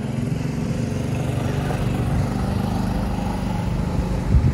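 A motor engine running steadily at an even pitch, with wind buffeting the microphone near the end.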